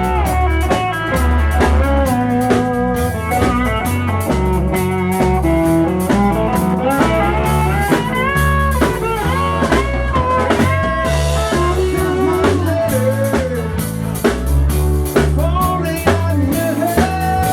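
Blues-rock band playing: a guitar lead with sliding, bent notes over a steady bass line and drum kit.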